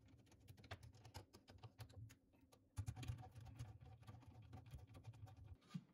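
Faint, irregular clicking and scraping of a screwdriver turning the screws that tighten a plastic drain saddle onto a drain pipe.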